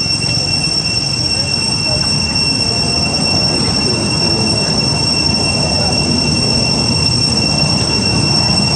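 Cicadas droning at a steady high pitch over a low, steady rumble.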